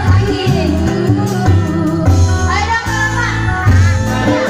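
Live dangdut band playing: a woman singing a melismatic melody into a microphone over hand drums, bass and keyboard.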